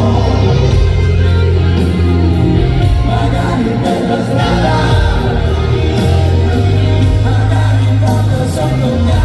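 A band playing live rock music with singing, with steady, heavy bass.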